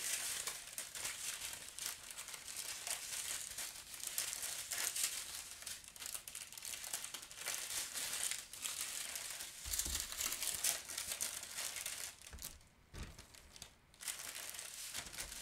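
Plastic bags crinkling and rustling as small bags of diamond painting drills are handled and slipped back into a larger plastic bag, with a short lull near the end.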